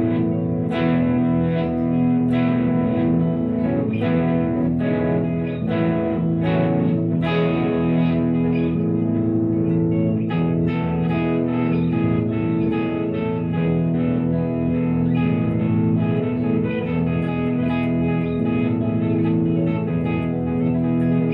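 Epiphone Les Paul Junior electric guitar, newly fitted with a replacement nut, played through an amplifier as a sound test: picked notes and chords ring out one after another, the picking getting busier about halfway through.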